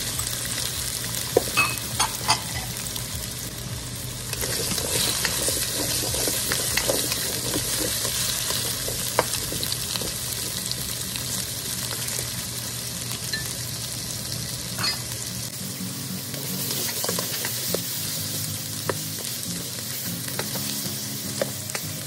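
Crinkle-cut potato and carrot pieces sizzling steadily in hot oil in a nonstick wok. They are stirred with a spatula that clicks and taps against the pan now and then.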